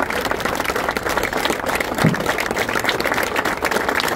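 Audience applauding: many hands clapping steadily, with one short low thump about halfway through.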